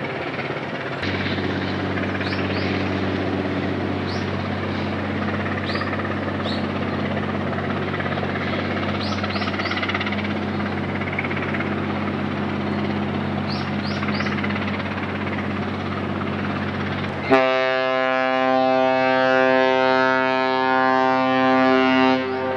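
Low steady drone from the passing cruise ship Westerdam, with a few short high chirps. About seventeen seconds in it gives way suddenly to the steady blast of the car carrier Hoegh Shanghai's ship's horn, a multi-tone horn and the loudest sound, which holds for about five seconds.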